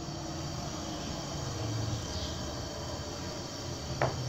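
Faint steady background drone, with one short sharp knock near the end.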